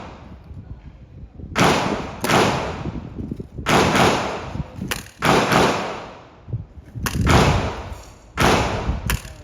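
Gunshots at an outdoor firing range, about eight at uneven intervals, each trailing off in a long echo.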